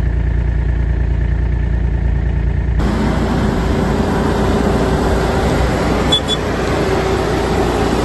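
A low, steady machinery rumble from combine harvesting, then, about three seconds in, a John Deere tractor's engine running steadily as it pulls a Fendt Rotana round baler picking up straw.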